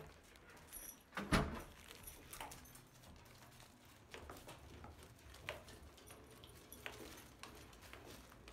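Two leashed Samoyeds and their walker heading down an outdoor staircase: scattered footsteps and paw clicks, with leash clips and harness tags jingling, and one sharp knock about a second in.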